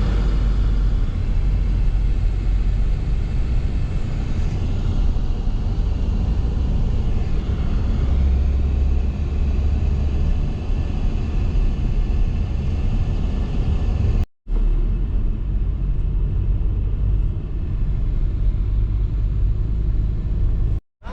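Steady low rumble of a moving car, in two stretches split by a brief dropout about 14 seconds in.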